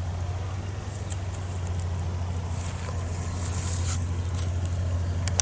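A steady low hum with light rustling and small clicks, as leaves of a rose bush brush close to the microphone. The rustling is strongest about three to four seconds in.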